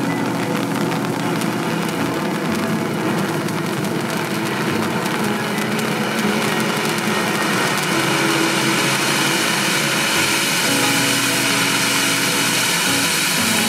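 Starget Neon Parrot cone fountain firework burning with a steady rushing hiss flecked with fine crackles. It grows louder and brighter about halfway through as the spark spray builds.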